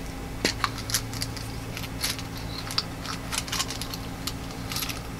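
Irregular small clicks and rustles of hands opening a pack of stormproof matches and pulling out a long match.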